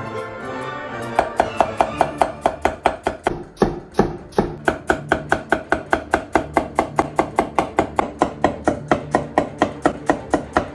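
Cleaver chopping a cucumber into slices on a thick wooden chopping block: a rapid, even run of knocks that starts about a second in and keeps going, over background music.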